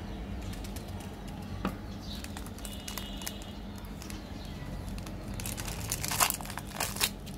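Lollipop wrapper crinkling as it is handled and torn open, with sparse rustles at first and a dense burst of crackling about six to seven seconds in.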